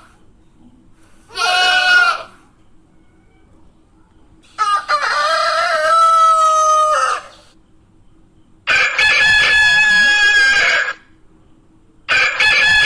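Goat bleating: one short bleat, then three long, drawn-out bleats with short pauses between them, the later ones rough and raspy.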